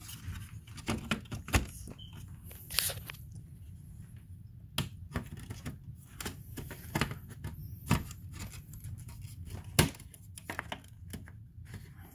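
Irregular sharp clicks and knocks of hard plastic: a Nissan Rogue front grille being pressed into a painted bumper cover, its clips and tabs snapping and seating, over a low steady hum.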